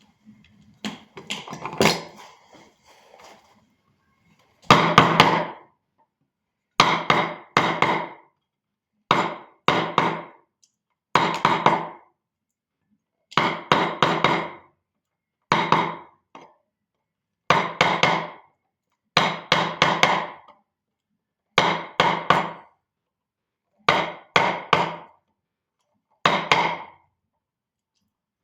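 Carving chisel being driven into wood by hand with a mallet: short groups of two to four quick taps, repeated about every two seconds.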